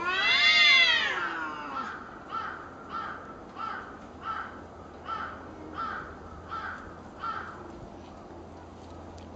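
Cats yowling in a territorial standoff: one long, loud yowl that rises and falls in pitch, followed by a string of short repeated wails about every 0.7 seconds that stop a couple of seconds before the end.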